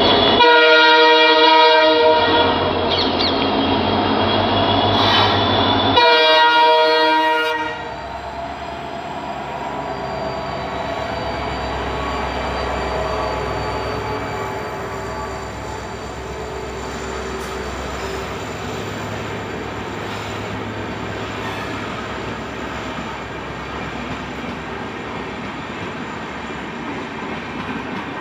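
Diesel locomotive's horn sounding as the train approaches: one long blast, then a second shorter blast that stops about seven seconds in. After that comes the steady rumble and clatter of the passenger coaches running past at speed.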